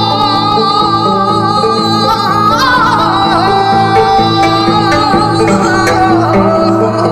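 Newly composed Korean traditional music: a long held lead melody with wide vibrato, sliding down in pitch twice, over steady repeated plucked-string notes.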